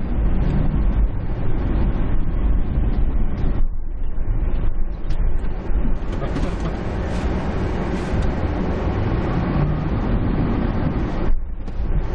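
Car cabin noise while driving and turning in snow: a steady engine and tyre rumble with heavy low bass, growing broader and hissier about halfway through.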